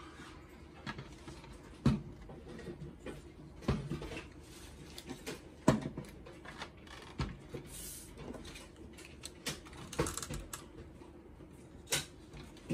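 Plastic covers and parts of a Zebra card printer being handled and set down on a wooden desk: scattered knocks and clicks, the loudest about two seconds and six seconds in.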